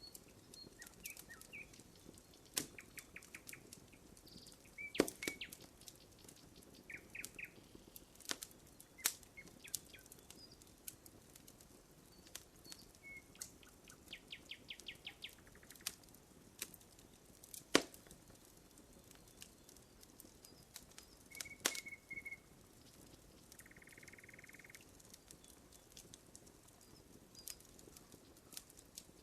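Wood fire crackling, with irregular sharp pops, a few of them louder, near 5, 9, 18 and 22 seconds. Birds call over it with short chirps and quick trills, and one buzzy call near the end.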